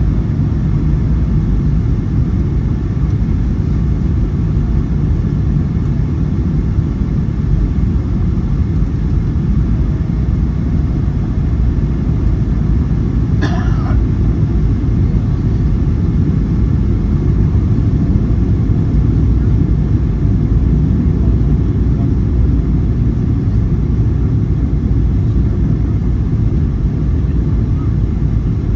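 Steady low rumble of a Boeing 737-900ER's engines and airflow heard inside the passenger cabin. A short higher-pitched sound comes about halfway through.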